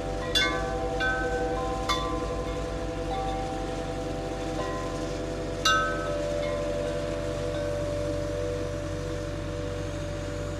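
Wind chimes ringing, with their held tones overlapping and a few sharper strikes about half a second, two seconds and six seconds in. A low, steady engine drone runs underneath.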